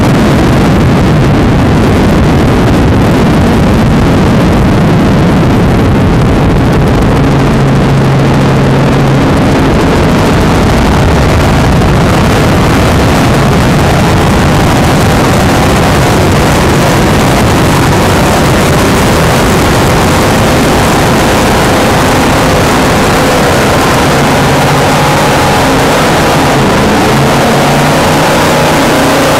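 Loud, steady engine noise mixed with a rush of wind and water, with no clear change in pitch.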